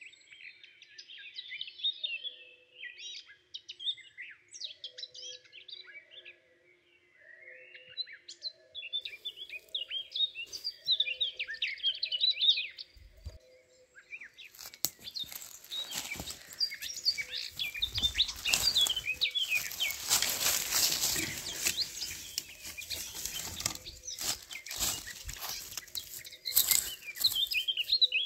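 Small songbirds chirping and calling in woodland. About halfway through, loud rustling and crackling starts and goes on to the end while the birds keep calling over it.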